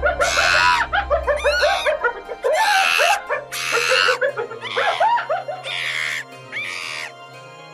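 About seven short animal cries in a row, a little under a second apart, over background music.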